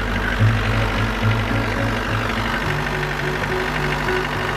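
The bus's diesel engine idling steadily, heard close up through the open engine hatch inside the cab.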